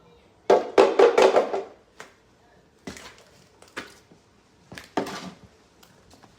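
Shattered skid-steer windshield glass clattering as it is cleared out of the frame: a loud burst of rapid clinking about half a second in, lasting about a second, then a few single clinks spread over the next few seconds.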